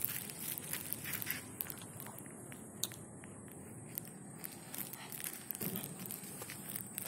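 Footsteps crunching on a gritty dirt lane, an irregular patter of small crunches and clicks that thins out in the middle and picks up again near the end, over a steady high hiss.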